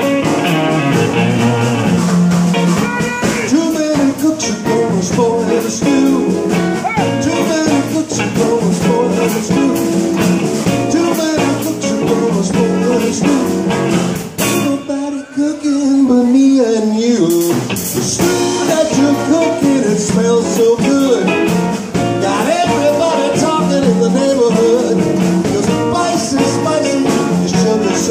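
Live blues band playing: electric guitars, upright bass and drums, with a male voice singing. About halfway through the band stops for some three seconds, leaving a single line sliding down in pitch, then the full band comes back in.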